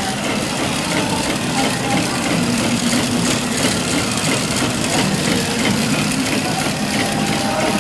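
Cereal bar processing line machinery running steadily: a constant hum with dense, fast ticking over it.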